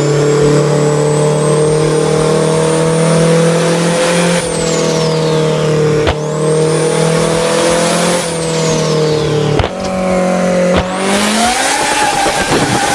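Nissan R33 Skyline's turbocharged straight-six pulling through the gears, a high turbo whine climbing during each pull and falling away at each shift, about three times.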